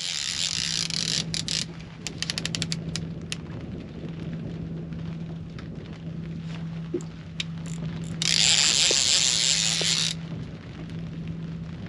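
Fishing reel worked under load while playing a hooked fish: a run of rapid clicks from the reel, then a loud hissing stretch of about two seconds near the end, over a steady low hum.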